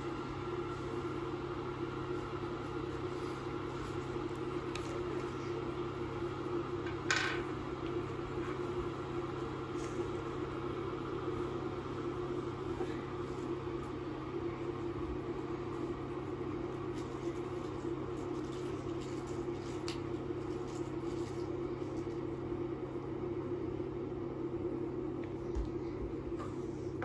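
Steady mechanical hum of a running appliance or fan, with one sharp click about seven seconds in and a few fainter ticks later.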